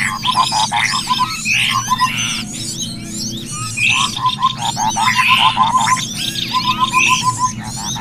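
Bird-lure (pikat) recording of cucak kopi and other small birds calling together: a dense mix of chirps and high twittering glides, with runs of quick repeated short notes recurring every second or so. A steady low hum runs underneath.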